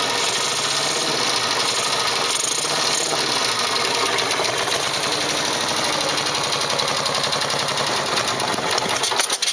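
Classic Norton motorcycle engine idling steadily.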